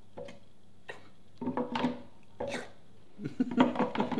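A man's voice in short murmured bursts, with a few light clicks as small knobs are handled and pressed onto a wooden hive panel.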